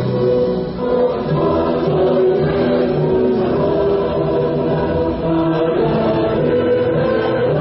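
Music with a choir of voices singing held notes.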